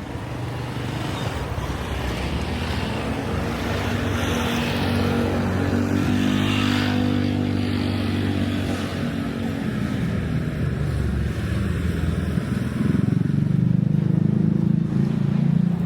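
Street traffic: a motor vehicle's engine passes close by, swelling and fading over several seconds, and another engine grows louder near the end.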